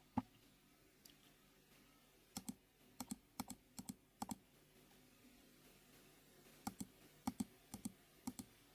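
Quiet computer clicks, mostly in quick pairs like a button pressed and released, about a dozen spread through with a gap in the middle, as moves are entered on a Go board program.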